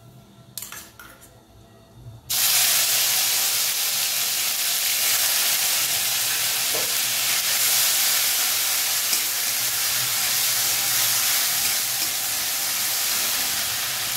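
Crushed tomato going into hot mustard oil in a kadhai: after a few faint crackles, a sudden loud sizzle starts about two seconds in, then steady sizzling and steaming as it fries.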